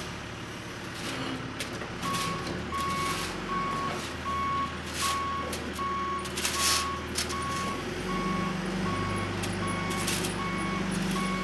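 Backhoe loader's backup alarm beeping at a steady, even pace over its diesel engine running. The alarm starts about two seconds in; the engine note rises about two-thirds of the way through, and a couple of brief noisy bursts sound in the middle.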